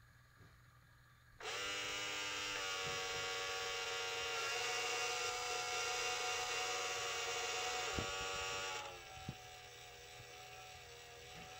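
Lemax animated Halloween mausoleum piece playing an eerie held chord of many tones through its small built-in speaker. The chord starts suddenly about a second and a half in and drops to a quieter held tone near the end. A few clicks come as its doors move.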